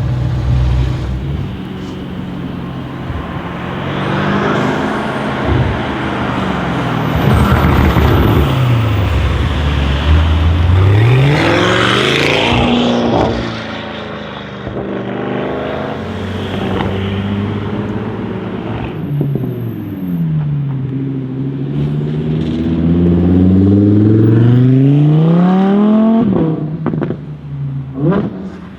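Tuned Audi RS6 C8's twin-turbo V8 through an Akrapovic exhaust, revving and accelerating. The engine note falls and climbs several times and rises sharply to its loudest about twelve seconds in. A long rising pull from about twenty seconds in cuts off abruptly, followed near the end by a few sharp cracks.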